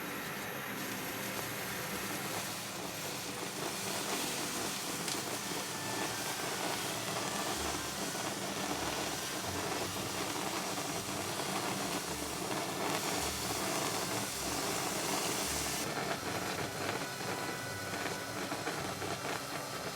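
Food cooking on the stove: a steady hiss with fine crackling, as a pot or pan of ingredients heats and steams.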